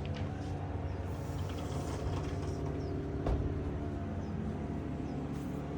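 Steady engine drone of machinery from nearby work going on behind the yard, with a single knock about three seconds in.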